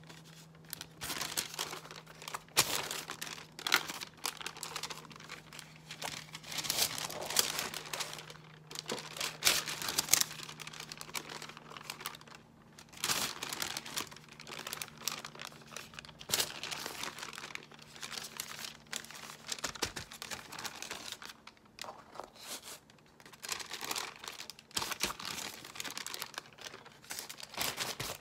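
A paint-covered paper sheet rustling and crinkling in irregular bursts as it is pressed onto a canvas pad and peeled off again, leaving monoprint marks.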